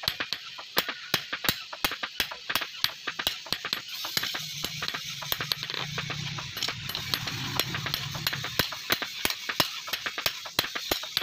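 Hand hammer striking a steel billhook blade on an anvil in quick, even blows, about four a second. A low hum runs underneath from about four to eight and a half seconds in.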